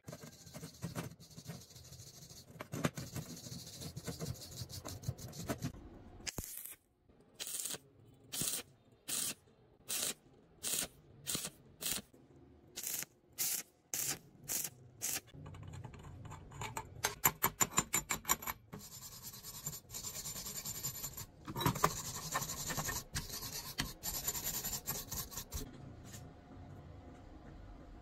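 Metal-fabrication work on steel: scraping and brushing strokes on fresh welds, with a run of short, evenly spaced strokes a little under a second apart in the middle, and stick-welding crackle.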